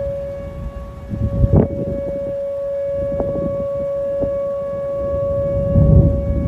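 Outdoor warning siren sounding a steady held tone during a tornado warning, swelling slowly in level, with wind buffeting the microphone in gusts, strongest about a second and a half in and near the end.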